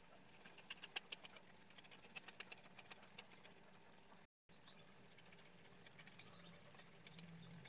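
Chicken pieces frying in a wok: faint irregular crackles and pops of hot fat for the first few seconds, thinning out to a low steady background. The sound cuts out completely for a moment about four seconds in.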